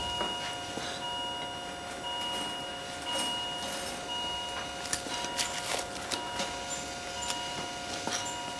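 Patient-monitor alarm in an operating theatre, beeping about once a second over a steady tone, signalling that the patient's heart has stopped. Faint scattered clicks sound alongside it.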